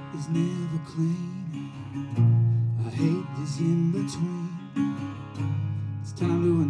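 Metal-bodied resonator guitar picked in an acoustic blues tune, with a steady bass note under a picked melody.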